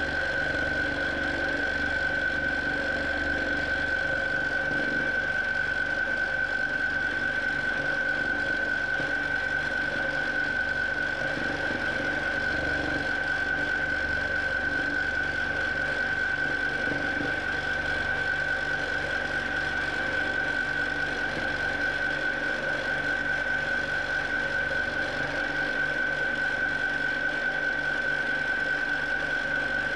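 Q'nique 19 longarm quilting machine running as it stitches free-motion quilting: a steady mechanical hum with a constant high whine.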